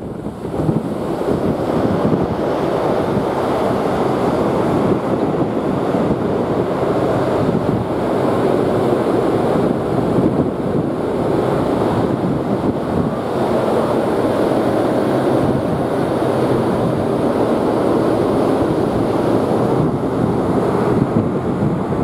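Steady wind rushing over the microphone, mixed with the wash of sea water along a moving ferry.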